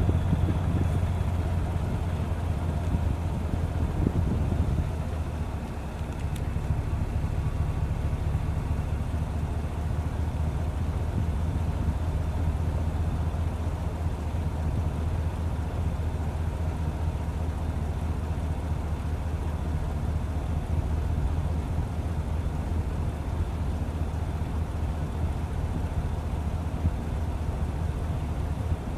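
Car engine and road noise, a steady low hum.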